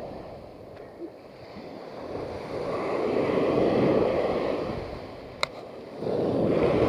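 Small waves breaking and washing up a sandy shore, swelling and fading twice, with a single sharp click about five seconds in.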